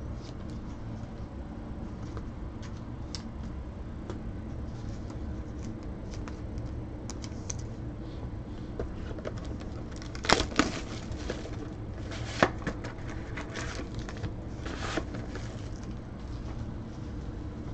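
A foil-wrapped trading-card pack handled and pulled from its cardboard box, crinkling and rustling in a few sharp spells about ten seconds in, over a steady low room hum. A few faint clicks and taps come before it.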